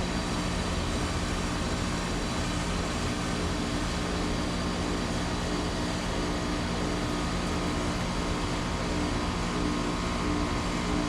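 Bryant Legacy Line 106ANA outdoor air-conditioner unit running steadily: a low compressor hum under the rush of the condenser fan.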